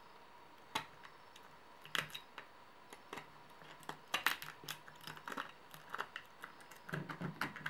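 Pocket knife scraping and snapping away excess plastic from a 3D-printed extruder block: scattered small clicks and scratches, a few at first and coming thicker from about four seconds in.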